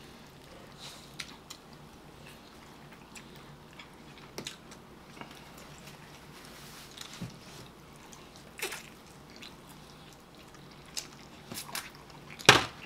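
Two people eating rotisserie chicken with their fingers: scattered chewing and eating sounds with small clicks, and one louder sharp sound just before the end.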